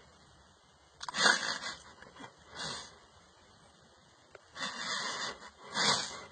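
Four short breathy huffs and sniffs, close to the microphone; the first, about a second in, is the loudest, and the last two come close together near the end.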